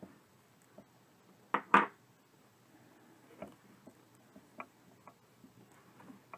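Hands working a plush teddy bear while stitching its seam closed: faint rustling and small taps, with two sharp knocks close together about a second and a half in, the stuffing tool set down on the table.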